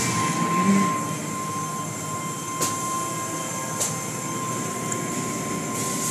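Automatic car wash heard from inside the car: water spraying and cloth wash strips and brushes sweeping over the body and windshield, over a steady machine hum with a constant whine. Two sharp slaps about a second apart come near the middle.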